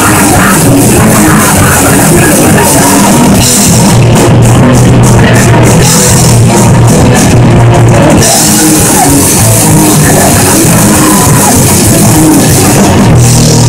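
Live rock band playing loud and heavy: distorted electric guitars, bass and a drum kit with cymbals, with shouted vocals. For a few seconds in the middle the cymbals drop into short, stop-start hits before the full crash comes back.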